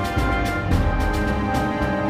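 Background music with sustained chords over a steady beat of about four pulses a second.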